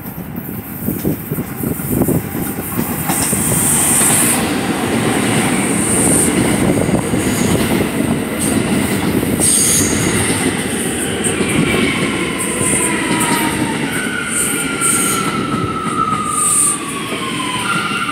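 R179 subway train pulling into the station: the rumble of wheels on rail builds, with brief high squeals. From about two-thirds of the way in, a falling whine sounds as the train slows to a stop.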